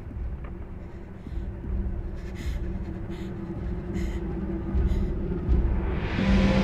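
Low rumbling horror-film drone swelling steadily louder, with a woman's short pained gasps over it. A strong steady low tone and a rising hiss come in near the end.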